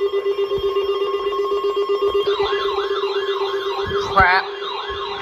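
Electronic tones: a steady buzzing tone, joined about two seconds in by a fast, evenly repeating warble like a yelp siren, with a quick rising chirp about four seconds in.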